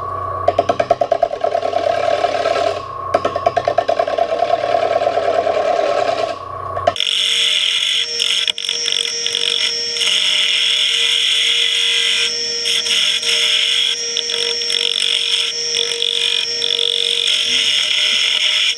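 A Powermatic wood lathe is running while a spindle roughing gouge cuts the spinning barn-beam blank, making a rapid fluttering cutting noise over a steady hum. About seven seconds in, the sound changes abruptly to a shriller, steady whine with a hiss, which runs on while the cut continues.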